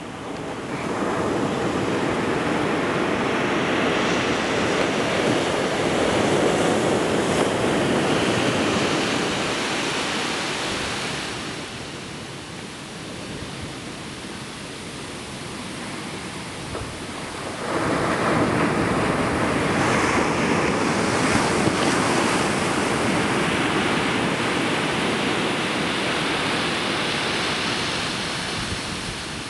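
High-tide ocean surf breaking and washing up the sand in two long surges. The first swells about a second in and eases off near the halfway mark; the second comes up suddenly a little after halfway and fades near the end.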